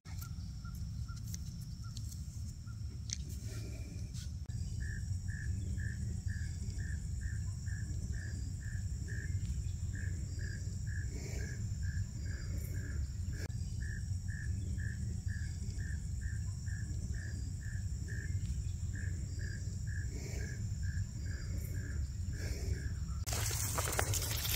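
Swamp-woods wildlife ambience: a steady high insect whine and an animal call repeated evenly, about two to three notes a second, over a low steady rumble. Near the end a louder rustling hiss comes in.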